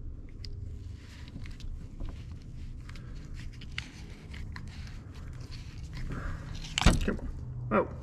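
Rubber boot being twisted and worked off a tower of a Chevy Sonic ignition coil pack by hand: soft rubbing and creaking of rubber, with a brief louder squeak about seven seconds in as it pulls free. A low steady hum runs underneath.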